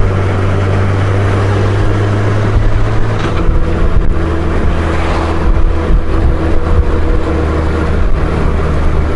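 Honda Gold Wing GL1500 flat-six engine running on the move, heard under steady wind noise; the engine note shifts about three seconds in.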